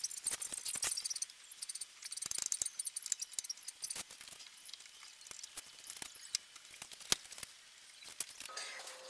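Light irregular clicks, ticks and clatter of bar clamps and wooden strips being handled and set.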